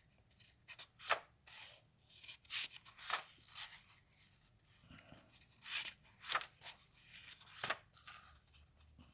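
Pages of a comic book being turned and handled: a dozen or so short papery swishes and rustles at an uneven pace.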